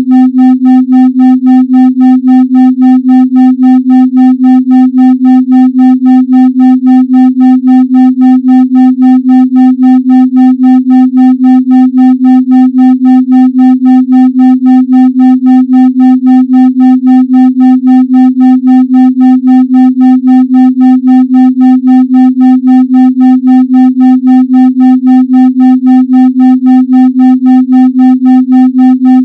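Steady 256 Hz electronic tone with faint overtones above it, pulsing evenly on and off about three and a half times a second: an isochronic tone with a 3.5 Hz pulse, meant for brainwave entrainment in deep meditation.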